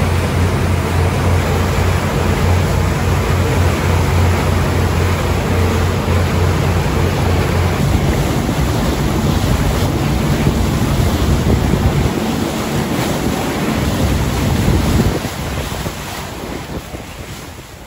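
Motorboat under way at speed: engine drone under the rush of its churning wake, with wind buffeting the microphone. The low engine hum drops away about eight seconds in, and the whole sound fades over the last few seconds.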